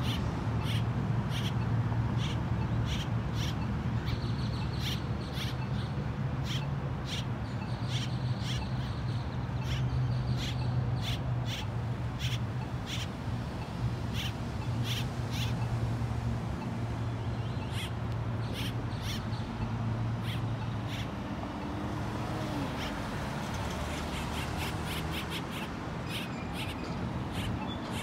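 Great-tailed grackles giving short, sharp chuck calls, about one or two a second, with a quicker run near the end, over a steady low traffic rumble.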